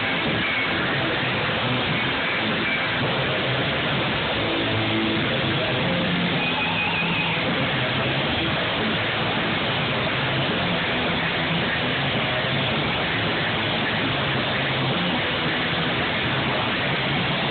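Live metal band playing loud: a dense, unbroken wall of guitar-heavy music with no pauses. It is recorded on a phone and has no high treble.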